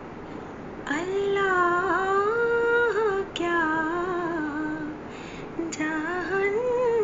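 A slow, wordless melody in a high voice, one ornamented, wavering line in phrases that start about a second in, with short breaks about halfway through.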